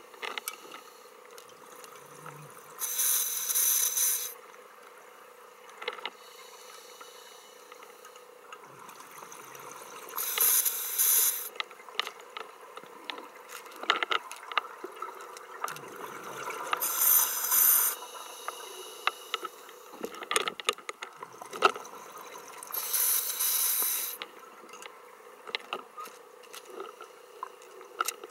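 Scuba diver breathing through a regulator underwater: four bubbling exhalations about every six to seven seconds, each lasting about a second, with quieter inhalations between them.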